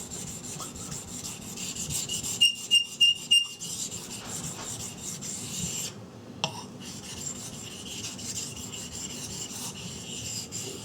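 A 3V steel knife blade stroked back and forth on a 400-grit water stone, a steady rasping rub while the convex edge bevel is reprofiled. About two seconds in come four quicker, louder strokes with a thin high tone, and the rubbing breaks off briefly near the middle.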